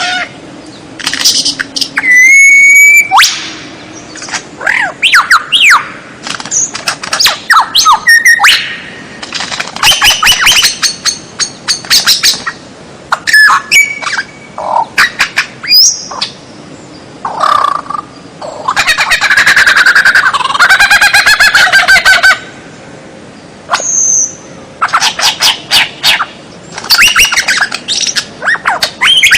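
Recorded songbird 'masteran' mix: a fast run of varied bird calls, with sharp whistles, chips and trills one after another, and a long buzzy chattering phrase about two thirds of the way through.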